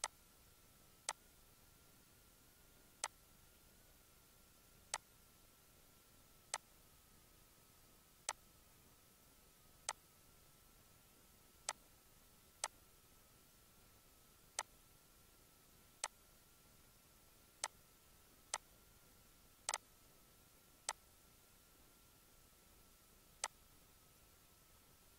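Computer mouse clicking: single sharp clicks at irregular intervals, about one every second or two, with one quick double click about three-quarters of the way through. A faint steady high-pitched whine runs underneath.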